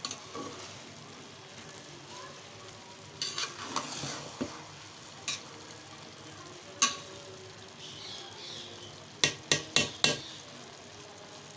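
Pot of pulao rice simmering in meat stock with a steady bubbling hiss, while a metal spoon stirs and scrapes through the rice, clinking against the metal pot a few times, with four quick taps about nine seconds in.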